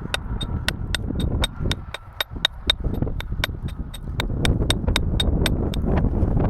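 Metal tool striking rock in a fast, even series of sharp ringing taps, about four a second, chipping away to loosen a fossil ammonite, over a steady low rumble.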